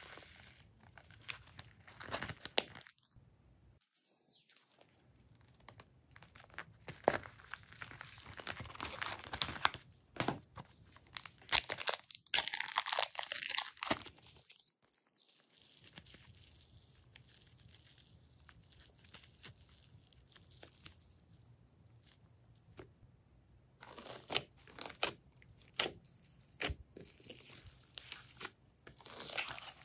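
Slime being squished and stretched by hand, with sticky crackles and small pops in irregular bursts and two short pauses.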